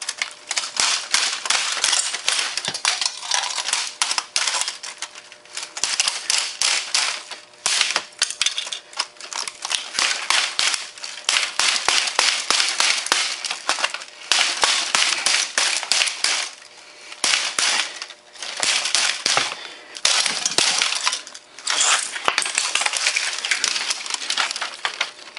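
Broken plastic casing and foil shielding of a smashed Compaq Presario F500 laptop crackling, snapping and clinking as it is pried and pulled apart by hand. The sound is nearly continuous, with a few short pauses.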